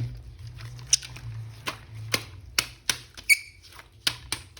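Sharp clicks and snaps of plastic being handled, about eight spread irregularly, with a short squeak about two thirds in, over a steady low hum.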